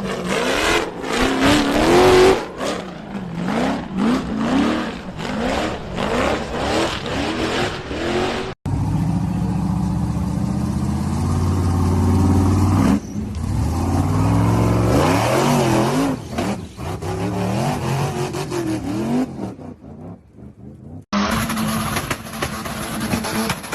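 Off-road 4x4 engines revving hard, the pitch climbing and dropping again and again, over a string of short clips that cut off abruptly twice. In the middle stretch one engine is held at high revs for a few seconds.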